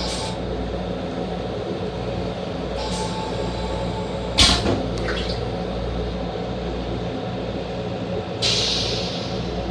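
Steady hum and rumble of a Metro-North M7 electric railcar heard inside its restroom, with a sharp clunk about four and a half seconds in and a short hiss near the end.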